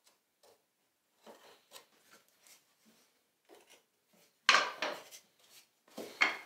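Light scratching and small taps of a marking knife and pencil tracing around a wooden spoon onto a wood blank, then louder wooden knocks and clatter as the spoon and tools are lifted and set down on the workbench, the loudest about two-thirds through and another near the end.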